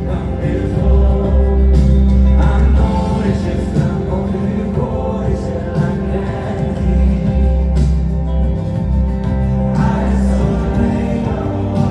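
Amplified pop song at a sound check: a singer's voice over a band track with heavy bass, through a PA system.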